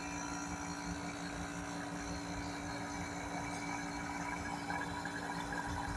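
Multi-split air conditioner's outdoor unit still running: a steady machine hum with several steady tones.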